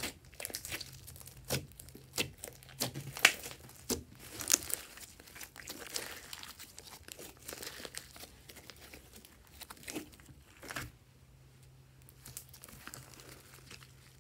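Hands squishing and stretching glittery slime with small beads mixed in, giving a run of sticky crackles and pops. The loudest pops come between about three and five seconds in, and it goes quieter in the last few seconds.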